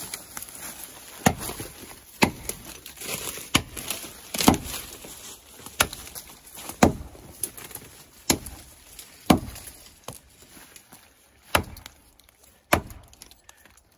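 A Lamaca bushcraft axe chopping into the trunk of a small standing alder in about ten sharp strikes, roughly one a second, with a longer pause near the end.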